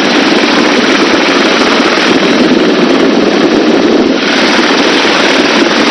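Helicopter in slow flight heard from a camera outside the open cabin door: loud, steady rotor and engine noise with rotor wash buffeting the microphone in a rapid flutter. The helicopter is hovering and creeping forward with a person hanging on its hoist cable.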